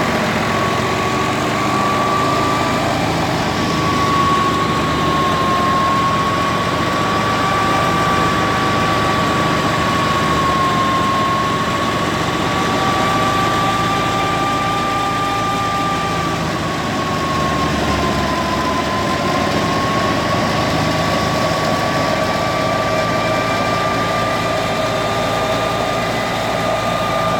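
Tractor-driven wheat thresher running steadily, with the tractor engine working under load. A loud, even machine din carries a high whine that drifts slightly in pitch.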